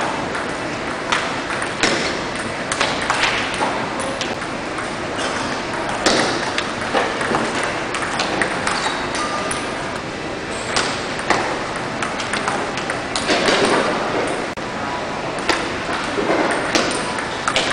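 Table tennis rally: the celluloid ball clicking off the paddles and bouncing on the table, in irregular runs of quick pings, over a steady background hiss.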